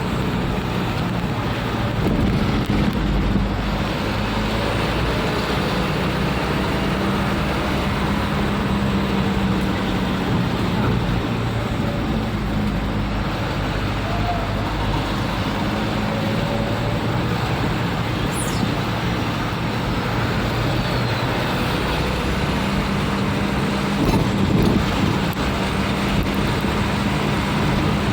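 Motor vehicle engine running steadily, with road and traffic noise.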